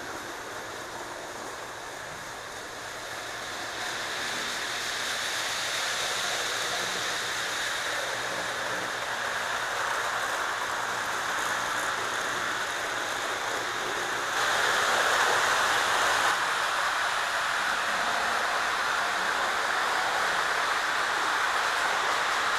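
Lionel O gauge steam locomotive and train running on three-rail track: a steady whirring rumble of motor and wheels that grows louder as the train comes near and is loudest for about two seconds a little past halfway, as it passes close by.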